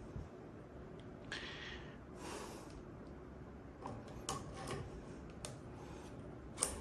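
Quiet handling of a lock decoder tool and lock: a few small sharp metal clicks in the second half, after two soft hisses.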